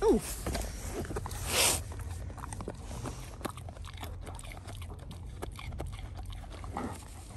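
Alaskan malamute chewing raw carrot: a run of small crisp crunches and clicks, with one louder, short rush of noise about a second and a half in.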